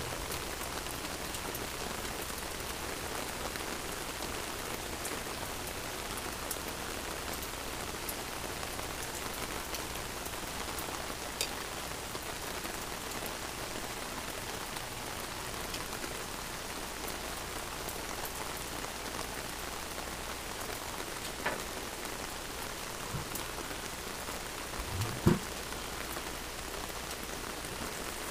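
Steady rain falling, with a few light clicks and one dull thump near the end.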